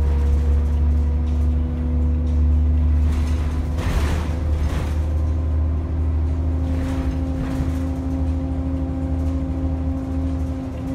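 Orion diesel city bus heard from inside the cabin while under way: a deep, steady engine rumble with a steady whine that steps slightly higher about halfway through. A rush of noise comes up around four seconds in and again a little later.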